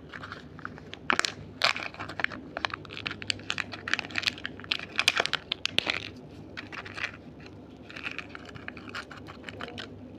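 Candy being crunched and handled: a dense run of sharp, irregular crackles and clicks for about six seconds, easing into softer crinkling.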